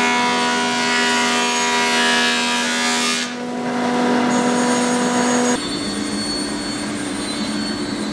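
Thickness planer running with a steady whine at several pitches. About three seconds in, the sound dips and changes as a board is fed into the planer, and it shifts again a little after halfway.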